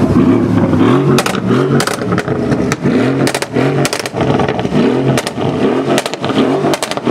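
Mercedes CLS 63 AMG's tuned V8 revved in quick repeated throttle blips, each a short rising rev, about one and a half to two a second. Sharp cracks and pops from the crackle exhaust fire between the blips.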